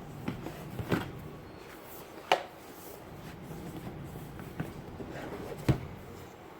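Handling noises as a leather-bound Bible and its packaging are lifted and turned over: soft rustles and a few scattered knocks and taps, the sharpest about two seconds in and again near the end.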